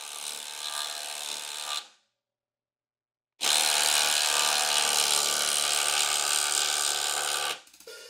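DeWalt 20V cordless impact driver hammering a lag bolt into a timber beam. It runs steadily, then cuts off about two seconds in. After a short break it resumes louder for about four seconds and stops near the end.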